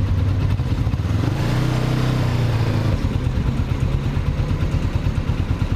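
Motorcycle engine running with wind rush as the bike rolls to a stop, then idling with an even pulsing beat from about three seconds in.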